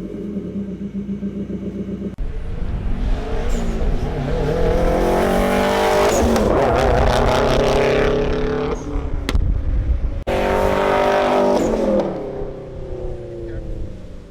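2015 Subaru WRX's turbocharged flat-four exhaust, with a Tomei unequal-length header, accelerating hard with its note climbing in pitch, twice, with abrupt cuts about 2 s and 10 s in, and falling away near the end.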